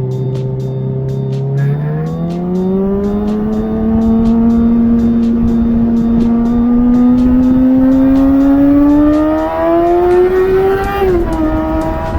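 Kawasaki ZX-6R's inline-four engine under steady acceleration, its note rising slowly in pitch for most of the time. The pitch drops sharply near the end, then holds level.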